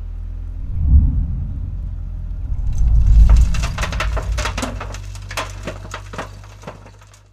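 Heavy diesel machinery running with a low rumble that swells twice, joined about three seconds in by irregular clattering and cracking, then fading out.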